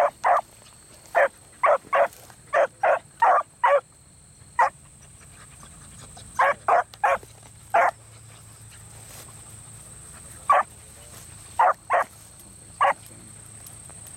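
Beagles barking in short, sharp barks, about nineteen of them in clusters of one to five with pauses between. These are rabbit hounds giving tongue as they work a scent through the field.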